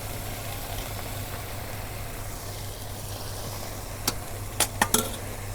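Steady hiss of a pot of biryani rice and chicken cooking on the stove, under a constant low hum, with a few short sharp knocks in the last second and a half.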